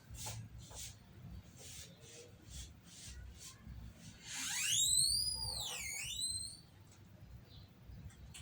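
A high whistling tone of about two seconds that sweeps up, dips, then rises again, over faint repeated ticks.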